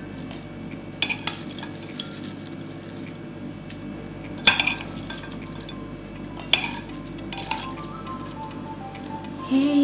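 Metal serving spoon clinking against plates as fried shrimp are scooped and served: a handful of sharp clinks a second or two apart, over a steady low background. Background music with a stepping melody comes in near the end.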